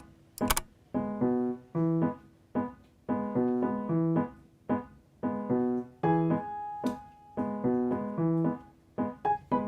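Background music: a light piano tune made of short, repeated chords in a steady rhythm, with a brief sharp click about half a second in.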